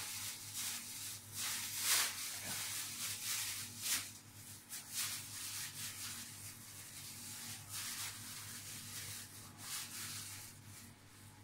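Plastic bag and wrapping paper rustling and crinkling in irregular handfuls as a present is unwrapped, the loudest crackle about two seconds in.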